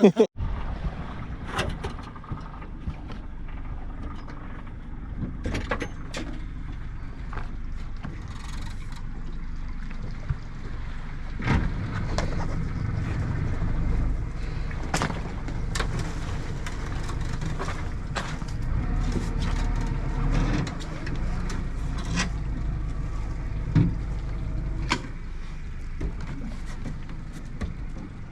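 Low, steady rumble of a boat underway, with scattered short knocks.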